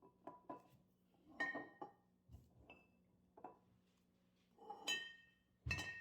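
Dishes and cutlery clinking: several light knocks and three sharper, ringing clinks, about a second and a half in, near five seconds, and just before the end.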